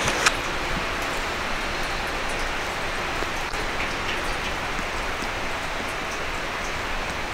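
A steady outdoor rushing noise with a few faint ticks scattered through it.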